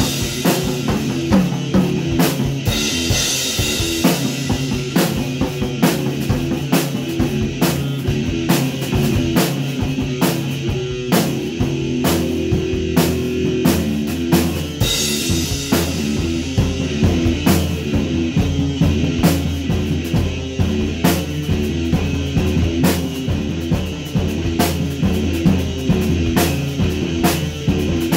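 Electric guitar playing a heavy riff over a rock drum beat, the kick and snare keeping a steady pulse.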